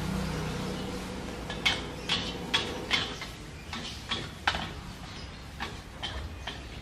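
Metal spatula clanking and scraping against a wok while noodles are stir-fried. A run of sharp clanks starts about a second and a half in, two or so a second, then thins out toward the end.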